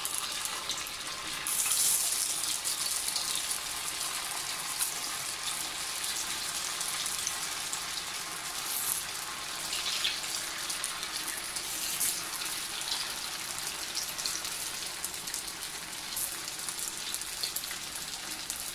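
Sabudana vada (sago-and-potato patties) deep-frying in hot oil in a steel pan: a steady sizzling hiss with a few louder bursts of crackling.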